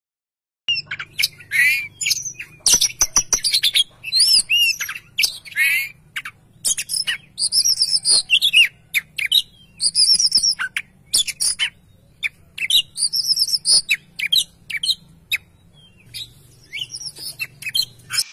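Oriental magpie-robin singing a fast, varied song of whistled notes that glide up and down, mixed with sharp clicks, over a faint low hum.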